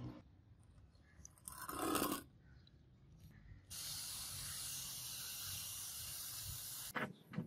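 Hand sprayer spraying a steady hissing mist for about three seconds, starting about halfway in. Earlier, about two seconds in, there is a short, louder noise.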